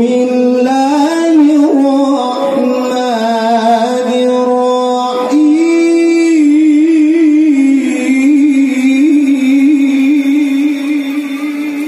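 A man's voice in tilawah, the melodic Quran recitation, amplified through a handheld microphone. Two long held phrases with melismatic ornaments: the first breaks off about five seconds in, and the second rises a little and wavers rapidly on the held note.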